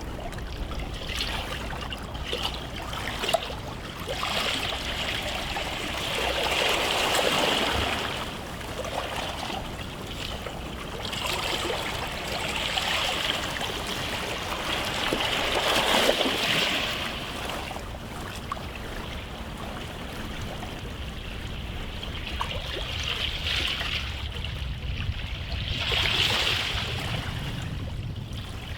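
Small sea waves washing onto a beach shore, a steady rush of water that swells louder every few seconds as each wave comes in and draws back.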